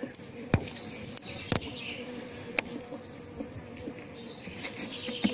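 Jandaíra stingless bees (Melipona subnitida) buzzing in an opened hive box, a steady low hum, with four short sharp clicks spread across it.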